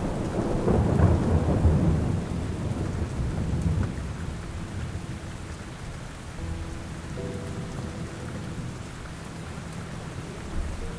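Steady rain with a roll of thunder that swells over the first two seconds and fades away by about four seconds in.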